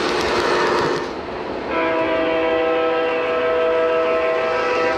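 Lionel O-gauge Amtrak Acela model train rolling past with a rushing wheel-on-rail noise. About two seconds in, the model's onboard sound system starts a long, steady blast of the Acela's multi-note horn chord.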